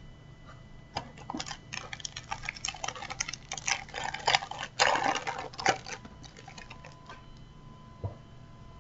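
Foil Match Attax trading-card packet being torn open and crinkled in the hands: dense crackling starts about a second in, is loudest a little past the middle, and dies away after about six seconds.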